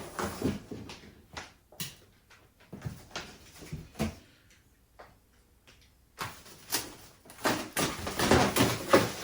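Cardboard shipping box and packaging being handled: scattered knocks and scrapes, a quiet spell of about a second past the middle, then busier rustling and scraping near the end.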